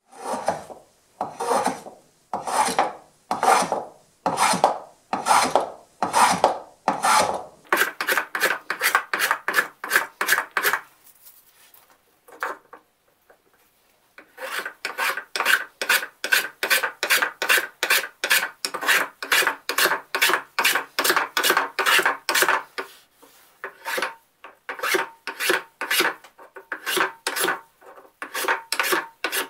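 Metal hand plane taking repeated shavings off a dense Brazilian bulletwood handle blank, one scraping swish per stroke. The strokes come about a second apart at first, then quicker and shorter at about three a second, ease off briefly near the middle, and pick up again in a long quick run.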